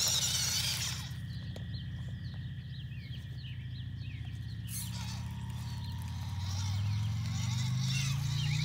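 WPL C14 RC truck's 360-size electric motor and two-speed gearbox whining as it crawls through plants and up onto a rock, the whine rising and getting louder under load about six seconds in. A hissing rustle at the start and short high chirps in the background.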